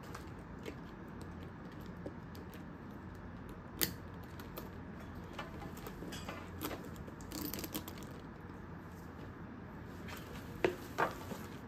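Faint handling sounds of a studded box handbag and its crossbody strap being put on: scattered small clicks and rustles, with a sharper click about four seconds in and two more near the end.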